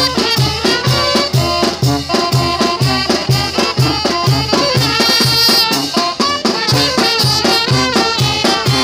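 Mexican banda (brass band) playing live: sousaphone bass notes on a steady beat about twice a second under trumpets, saxophones and alto horn, with drum and percussion.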